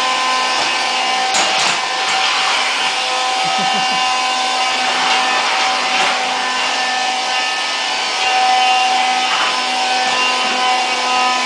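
Swiffer Vac cordless stick vacuum running with a steady, unchanging motor whine. A few brief knocks come about a second and a half in.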